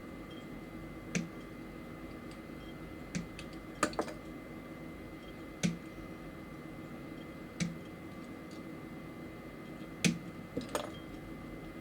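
Sharp plastic clicks and snaps from small model kit parts being handled and fitted: about nine separate clicks at irregular intervals, a couple of them in quick pairs.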